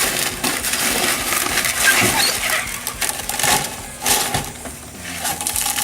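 Loose scrap copper wire being handled and gathered up for weighing: a continuous crackly rustle with many small clicks, quieter near the end.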